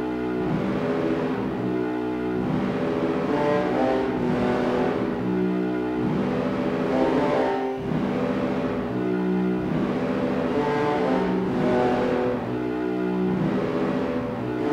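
Raw dungeon synth music: low-fidelity synthesizer chords held as a thick drone under a hiss, swelling and falling back in a slow repeating pattern about every two seconds.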